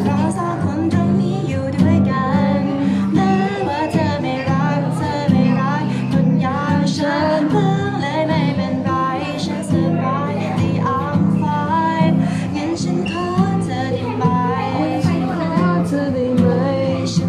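A young man singing a pop ballad while strumming an acoustic guitar, his voice carrying the melody over steady chords.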